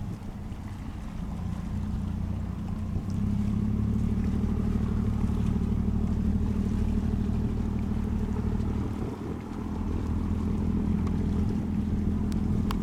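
A boat's engines running with a steady low drone that grows louder a few seconds in, dips briefly, then comes back up. There is a short click near the end.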